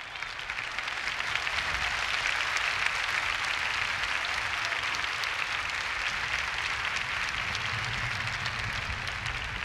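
Congregation applauding, swelling over the first couple of seconds and easing off near the end.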